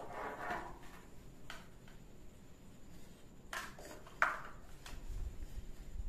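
Handling noises of a plastic mixer-grinder motor base being turned over in the hands: a soft rustle at first, then a few light clicks and taps, the loudest a sharp tap about four seconds in.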